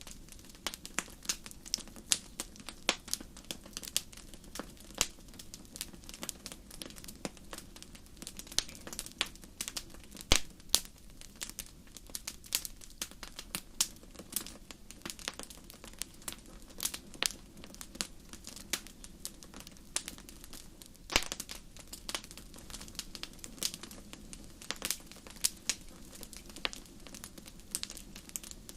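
Wood fire crackling in a fireplace: a steady stream of irregular sharp pops and snaps over a low, even hiss, with a few louder pops.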